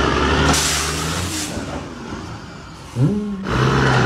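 Semi truck's diesel engine running as the tractor-trailer pulls forward, with a burst of hiss about half a second in. Near the end the sound cuts off abruptly and a different engine sound starts.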